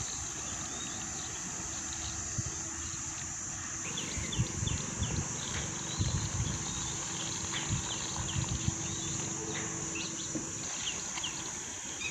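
Rural outdoor ambience: a steady high-pitched insect drone with scattered short bird chirps, and some low knocks and rumbles in the middle.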